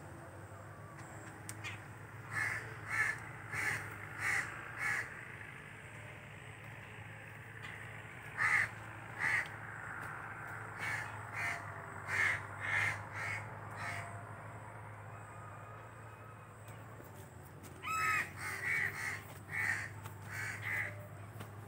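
Crows cawing in short, harsh calls that come in runs of several caws, separated by pauses of a few seconds. These are alarm caws at a person close by, as the crows sense danger.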